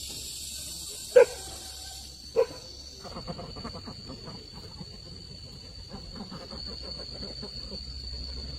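Ducks quacking: two loud single quacks about a second apart, then from about three seconds in a flock keeps up a continuous busy quacking and chattering.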